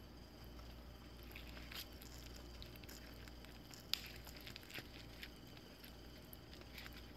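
Faint clicks and scrapes of a plastic utensil against a black plastic takeout bowl as chicken and fried egg are cut and scooped, the sharpest click about four seconds in.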